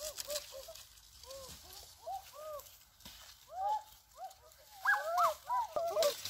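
Many short animal calls, each rising and falling in pitch, overlapping one another and growing busier and louder near the end.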